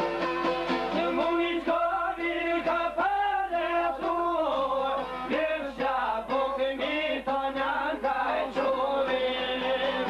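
Men singing an Albanian folk song in long, wavering, ornamented phrases over a plucked çifteli, the two-stringed long-necked lute.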